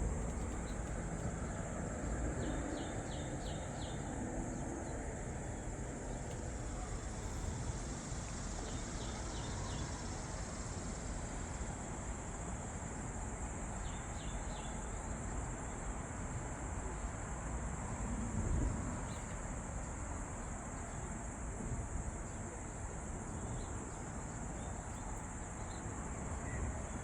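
Crickets trilling steadily, high-pitched, with a few short chirps of four or five quick pulses now and then over low background noise.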